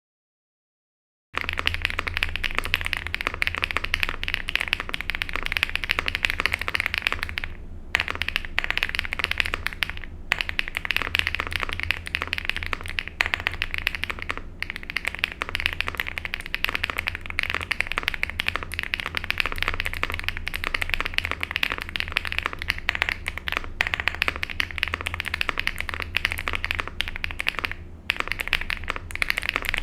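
Rainy75 aluminium mechanical keyboard with stock linear switches, typed on fast and continuously. The keystrokes start about a second and a half in and run as a dense clatter, with a few brief pauses.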